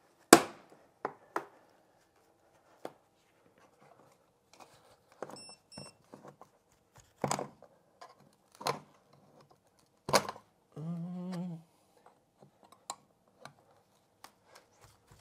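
Screwdrivers and a steel electrical floor box knocking and clicking as the box is pried loose from a wood floor: a string of separate sharp metallic clicks and knocks, the loudest right at the start.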